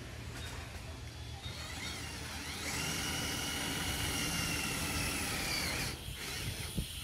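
Power drill driving a screw to fix an aluminium composite panel: the motor spins up to a steady high whine, runs for about three seconds and stops abruptly. A single knock follows near the end.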